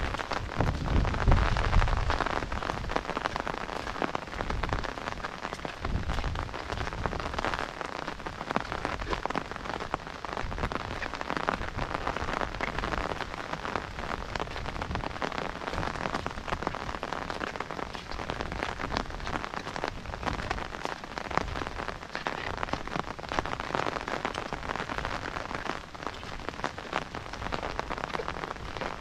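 Steady monsoon rain falling on a wet brick path, grass and flooded fields: a dense, even patter of drops. A low rumble underlies the first two seconds.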